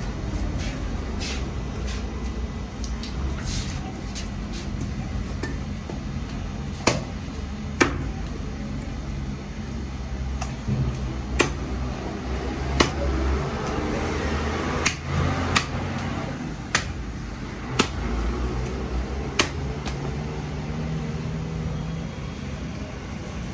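Knife chopping through a catfish on a cutting block: about nine sharp, irregular chops starting some seven seconds in, over a low steady hum and background voices.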